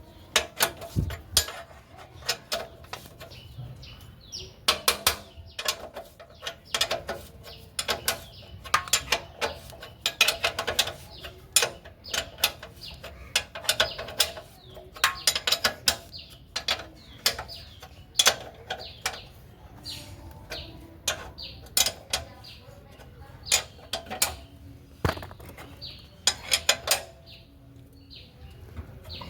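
Metal hand tools clicking and clinking against motorcycle parts in irregular bursts, with quick runs of clicks like a ratchet spanner being worked.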